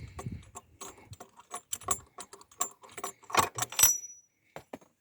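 Small metal parts and tools clinking and rattling in a quick, irregular run of clicks, with a short bright metallic ring about four seconds in, as a removed spark plug is handled for cleaning.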